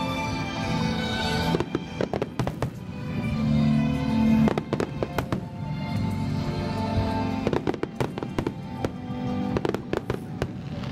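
Fireworks bursting and crackling in irregular volleys, with sharp bangs over music playing throughout.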